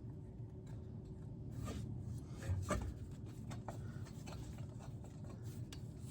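Faint scrapes and light clicks of metal engine parts being handled and fitted by hand, with one louder knock a little under three seconds in, over a steady low hum.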